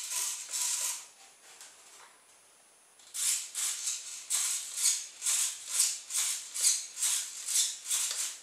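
Small hobby servos whirring in short bursts, about two or three a second, as the transmitter sticks are flicked back and forth to move the glider's elevator and rudder. The bursts stop for about two seconds after the first second, then resume.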